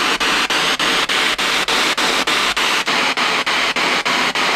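Spirit box sweeping through radio frequencies: steady loud static chopped by short gaps about four times a second as it jumps from channel to channel.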